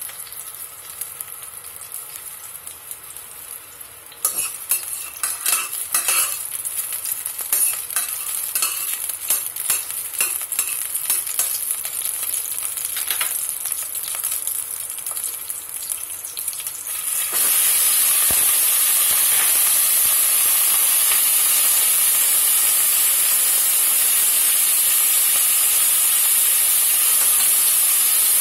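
Ginger and spring onion sizzling in hot oil in a stainless steel pot, with a metal spatula clicking and scraping against the pot. About two-thirds of the way in, the sizzle jumps suddenly to a loud, steady hiss as the pork ribs go into the hot oil to fry.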